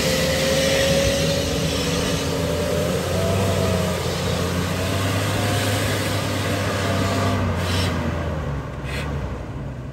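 Jeep Grand Cherokee's 4.0 straight-six engine running hard under load as the Jeep climbs a muddy slope, with a whine above the engine note. It gets quieter near the end.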